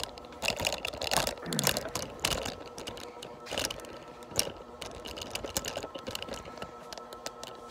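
Irregular light clicks and knocks of handling and moving about, over a faint steady hum.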